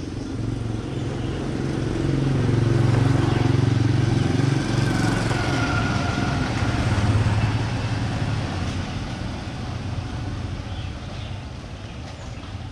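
Motor vehicles driving past: engine noise swells a couple of seconds in, rises again about seven seconds in, then fades.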